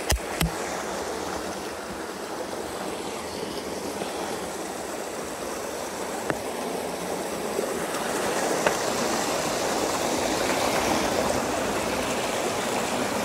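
Shallow rocky stream rushing and gurgling over stones, a steady wash of water that grows a little louder after about eight seconds, with a few sharp clicks.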